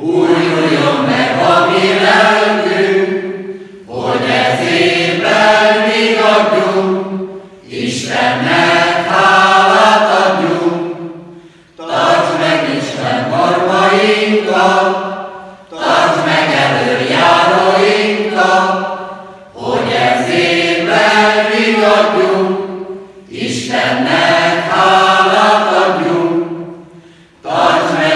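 Mixed choir of men's and women's voices singing a Hungarian Christmas song in phrases of about four seconds, each separated by a short break.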